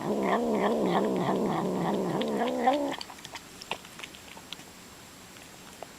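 House cat giving one long wavering vocalization, about three seconds, its pitch wobbling up and down like a mumbled "yum yum", in reply to its owner's prompting. Then it stops, leaving only a few faint clicks.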